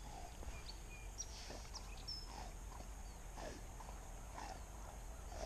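Faint outdoor ambience: a low steady rumble of wind with a series of faint, short, downward-sliding animal calls every second or so, and a few tiny high chirps.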